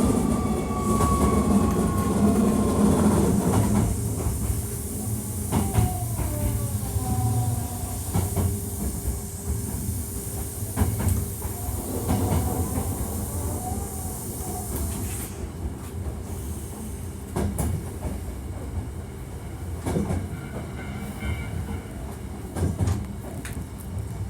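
Hankyu 1300 series electric train running between stations, a unit noted for an unusual running noise: steady rumble of wheels on rail with scattered sharp clicks from the track. A motor whine falls slightly in pitch over the first few seconds, and a high hiss cuts off about halfway through.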